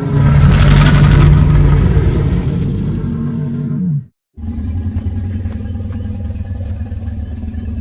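Movie-style dinosaur roar built from layered animal calls such as elephant, big cat and crocodile. One loud roar of about four seconds, strongest in its first half, ends with a downward slide in pitch. After a short break, a lower, steadier rumbling growl follows.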